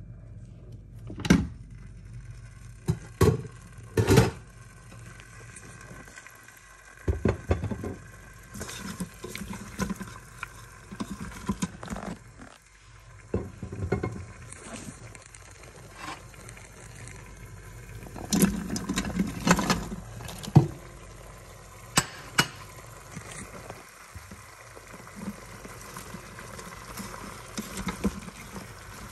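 Sharp clicks and knocks as an electric pressure cooker's lid is opened and its inner pot handled, then sliced carrots and onion dropped into the pot with soft thuds and clatter, busiest about two-thirds of the way through. A faint steady hum runs underneath.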